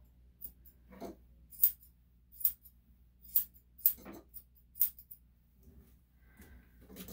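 Grooming scissors snipping through a small dog's hair in sharp metallic clicks, about one a second for several seconds. The snips trim and cut out small mats around the face and chin.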